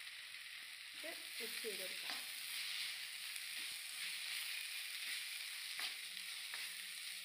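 Sliced onions sizzling in hot oil in a non-stick frying pan as they are stirred with a spoon, with a few light knocks of the spoon against the pan.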